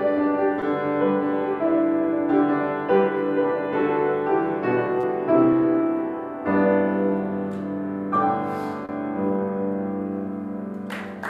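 Solo upright piano playing chords and a melody line, settling on a held chord that slowly dies away over the last few seconds.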